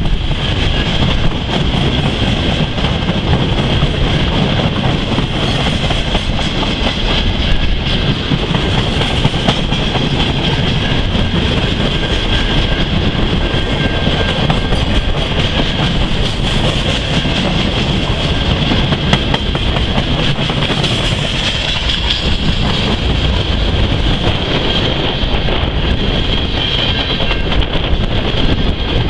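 Freight train of empty rack flatcars and boxcars rolling past, a loud, steady rumble and clatter of steel wheels on the rails, with a steady high ringing tone above it.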